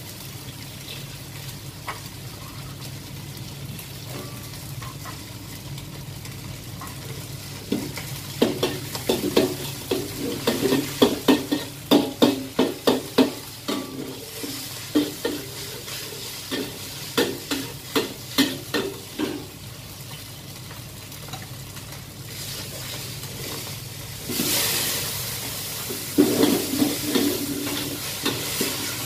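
Noodles frying in a wok over a gas burner with a steady sizzle, while a metal utensil scrapes and knocks against the wok in quick strokes, about two or three a second, through the middle. Near the end comes a louder burst of sizzling hiss, followed by a few more knocks.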